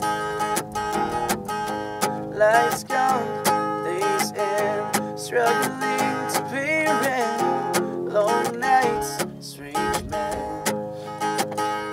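Acoustic guitar being strummed and picked, with a man singing over it at times.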